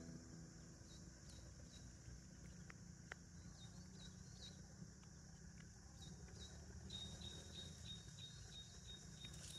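Faint outdoor ambience: a steady high insect drone with scattered short high chirps, turning into a quick even run of chirps about three a second near the end, over a low rumble.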